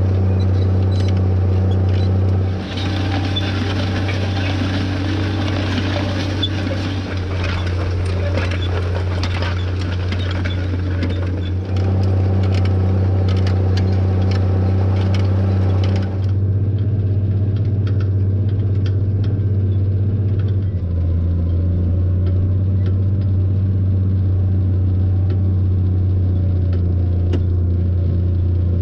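Farm tractor engine running at a steady drone while pulling a disc through sod ground, its tone shifting slightly a few times, with light clicking and rattling in the first half.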